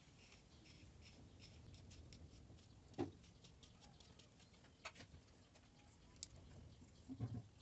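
Near silence with faint scattered clicks, a sharper knock about three seconds in, and a short cluster of knocks near the end.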